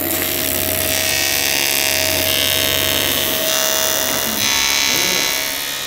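AC TIG welding arc on aluminium sheet: a steady buzzing hiss as a bead is laid along the edge of a small aluminium box, a little louder from about four and a half seconds in.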